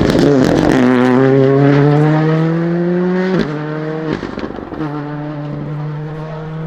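Rally car engine under hard acceleration, its note climbing steadily, then dropping sharply on an upshift about three and a half seconds in. After a brief break it pulls again with a slowly rising note.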